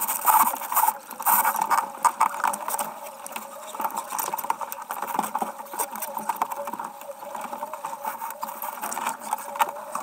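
Sailboat deck gear clicking and rattling rapidly while the spinnaker is hoisted, over a steady rush of wind and water. The loudest gusty noise comes in the first couple of seconds.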